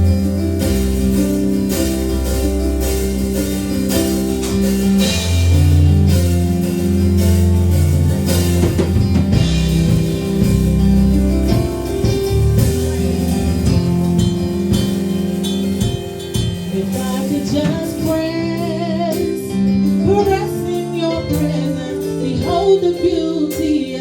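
Gospel worship band playing the introduction to a slow worship song, with bass and guitar holding sustained chords. A singer's voice comes in over the music near the end, without clear words.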